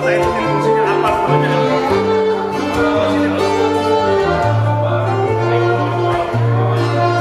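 Instrumental music with bowed strings: long held notes over sustained bass notes that change every second or two.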